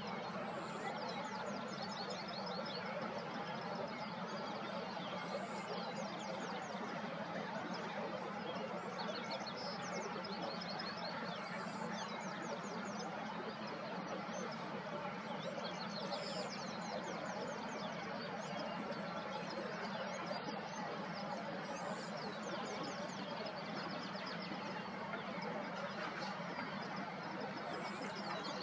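A small songbird singing a short, high, rapid trill that repeats about every four to five seconds, over a steady background rush of outdoor ambience.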